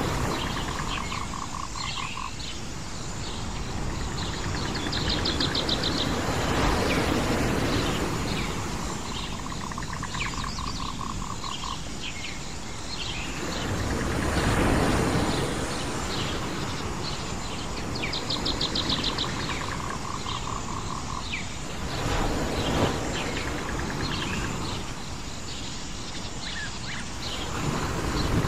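Nature ambience: a rushing noise that swells and eases about every seven to eight seconds, with fast trilling animal calls and short chirps recurring on the same cycle.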